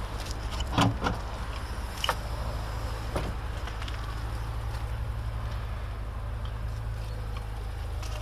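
Peugeot 207 tailgate unlatched and lifted open, with a loud clunk of the release about a second in and two lighter clicks after it, over a steady low hum.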